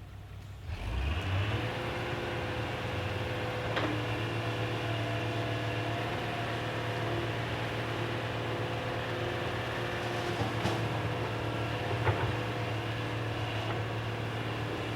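A motor starts up about a second in and runs steadily with a hum, with a few sharp clicks or knocks along the way.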